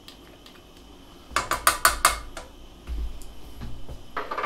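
Metal kitchen utensils and dishes clattering: a quick run of five or six sharp clinks about a second and a half in, then a dull thump a second later and a short clink near the end.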